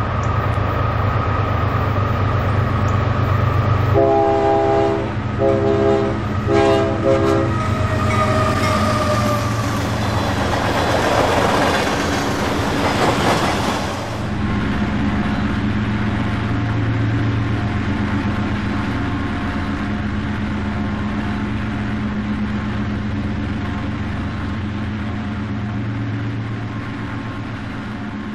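Approaching CP diesel freight train: the lead locomotive's K5LLA five-chime air horn sounds three short blasts about four seconds in, over the steady rumble of the diesel engines, as a horn salute. The locomotives then pass in a loud rush of noise that cuts off suddenly, leaving the steady low rumble of the rolling freight train.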